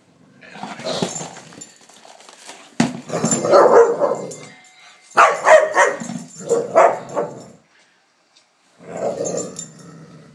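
Dog barking and growling in play, excited at a lampshade, in about five bursts with short gaps between them. The loudest burst starts sharply a few seconds in.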